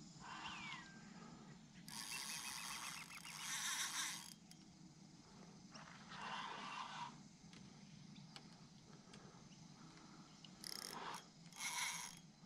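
Fishing reel clicking in four short spells, the first a run of quick, even ticks about two seconds in, as line is worked against a hooked fish pulling on the rod.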